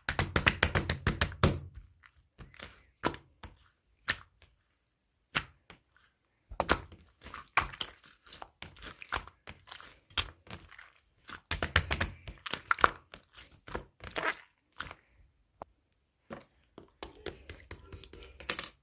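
Clear slime being squeezed and poked by hand, giving quick runs of sharp, wet clicks and pops in several clusters with short pauses between.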